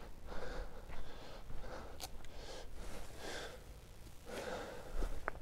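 A person moving about close by: soft rustles about once a second, with a sharp click about two seconds in and a short tick near the end.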